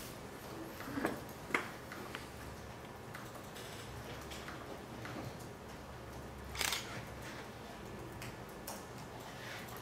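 Laptop keyboard typing: scattered faint key clicks and taps, with two sharper clicks about a second in and a brief louder rustle about two-thirds of the way through, over a steady low room hum.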